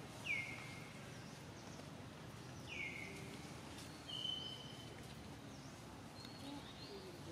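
A bird calling: two short whistled notes that fall in pitch, a couple of seconds apart, then a brief level whistle about four seconds in, over a steady low background noise.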